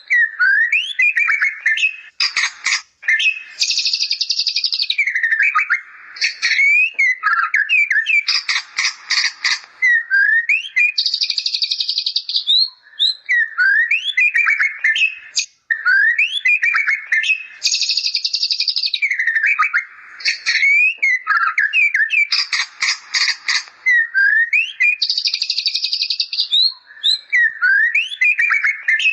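White-rumped shama (murai batu) singing continuously, its song laced with mimicked bar-winged prinia (ciblek) calls: quick rising whistles alternating with rapid buzzy trills and rattles. The same phrase comes round about every seven seconds.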